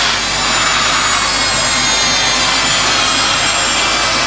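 Steady rush of jet engines, a sound effect of an airliner in flight.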